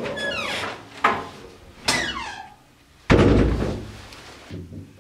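An apartment door creaking on its hinges in falling squeaks, with a sharp click about a second in, then the door shutting with a heavy thud about three seconds in, the loudest sound here.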